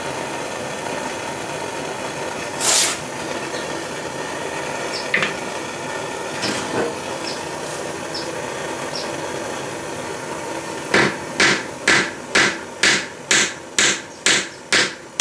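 Propane torch running with a steady hiss, with a sharp metallic clink a few seconds in. In the last four seconds, a French cross peen hammer strikes a small stake anvil about ten times at an even two blows a second, flattening the hot head of a horseshoe nail.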